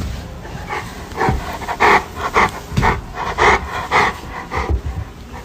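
A dog panting hard, a run of quick noisy breaths coming irregularly two or three a second.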